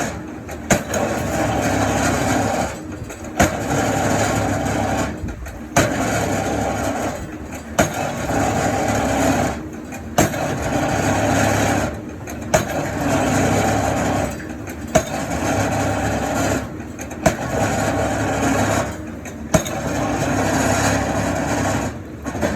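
Excavator engine and hydraulics working under load in regular cycles of about two seconds. Each cycle is separated by a short dip in level and a sharp knock.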